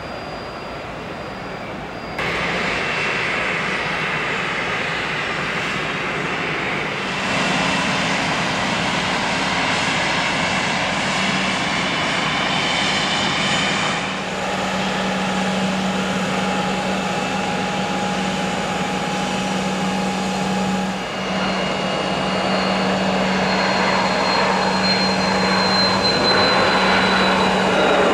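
Business jet turbofan engines, including a Cessna Citation XLS+, running at taxi and runway power in a series of spliced clips. A steady engine hum and hiss carries a whine, and the loudness jumps at each cut. Near the end a high whine slides slowly down in pitch as the sound grows louder.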